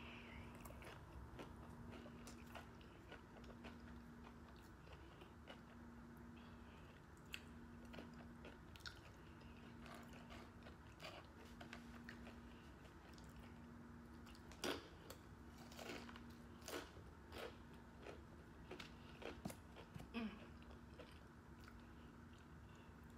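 Close-miked chewing and biting of tacos topped with crunchy Takis: quiet mouth sounds with scattered sharp crunches and clicks, the loudest about 15 seconds in. Under it runs a faint low hum that pulses on and off about every second and a half.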